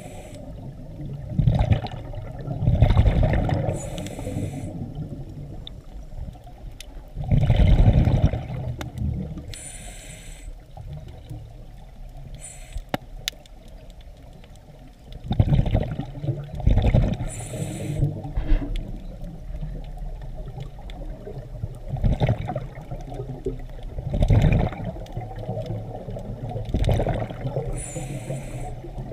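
Scuba diver breathing through a regulator underwater: short high hisses alternate with low rumbling gushes of exhaled bubbles, in a cycle that repeats every few seconds.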